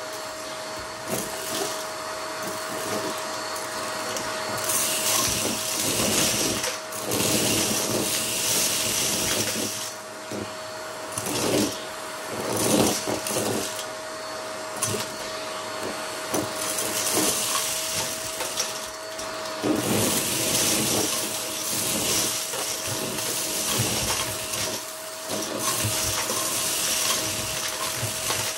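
Vacuum cleaner running, with a steady motor whine and a hiss that swells louder for a second or two at a time, several times over.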